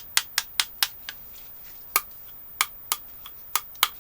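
18650 lithium-ion cells' steel cans clinking against one another as they are handled and sorted. A quick run of clinks in the first second, then scattered single clinks.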